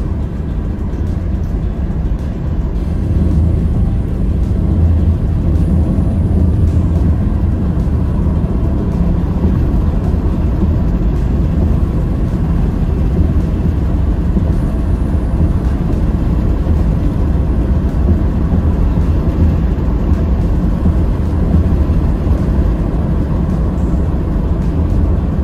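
Steady low rumble of a car at highway speed, heard from inside the cabin: engine and tyre-on-road noise. It grows louder about three seconds in and then holds steady.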